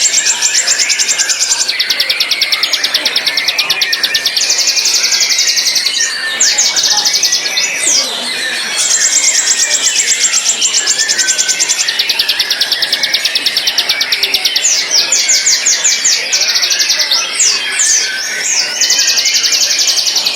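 White-rumped shama (murai batu) singing: long, very fast high-pitched trills delivered in runs of one to three seconds, with quick sweeping whistled notes in between during the second half.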